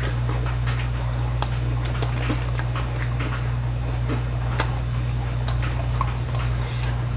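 People chewing battered fried pork (tangsuyuk) close to the microphone, with many short clicks and taps scattered throughout, over a steady low hum.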